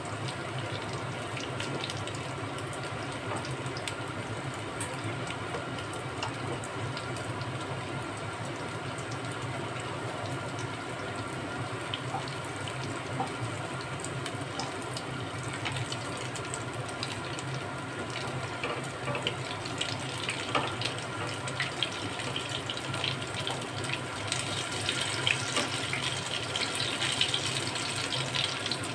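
Spinach, paneer and potato pakoras deep-frying in hot oil in a kadai: a steady sizzle with small crackles that grow busier and louder near the end.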